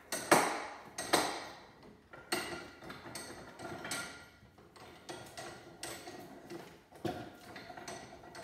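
Metal knocking and clinking as a vacuum cleaner's steel-and-copper motor is set upside down in a bench vise and clamped: two sharp knocks in the first second and a half, lighter clinks and taps after, and another knock about seven seconds in.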